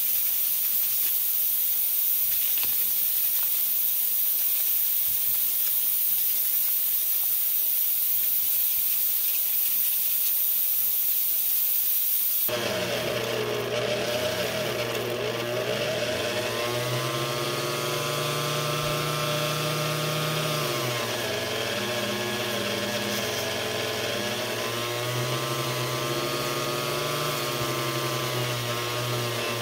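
A steady hiss. About twelve seconds in it gives way to a small handheld rotary tool running with a felt buffing wheel, its whine rising and falling in pitch as its speed changes.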